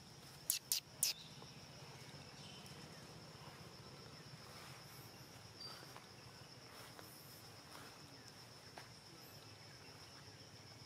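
Faint steady insect trilling at one high pitch, with three short, sharp high chirps in quick succession about half a second in.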